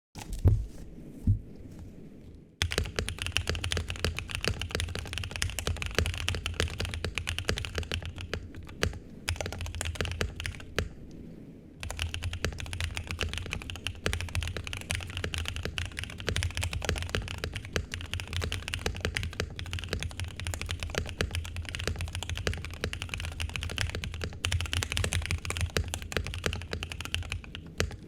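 Mechanical keyboard with lubed Durock POM linear switches, a POM plate and PBT keycaps, being typed on. A few separate keystrokes come first, then fast continuous typing with a brief pause about twelve seconds in.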